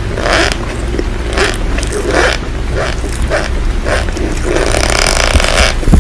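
Crunching in short bursts, roughly twice a second and irregular, over a steady rain-like hiss and a low hum.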